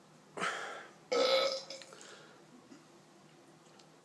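A person burping twice: a short burp, then a longer, louder pitched belch about a second in that trails off.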